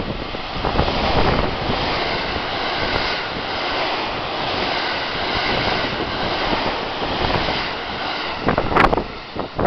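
A JR 681/683-series limited express electric train passing through the station at speed without stopping: a loud, steady rush of wheels on rail and moving air as the cars go by. Near the end, gusts of the train's wake buffet the microphone.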